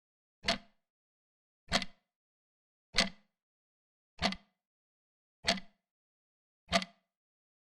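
Large clock ticking: six sharp, evenly spaced ticks, about one every second and a quarter, with silence between them.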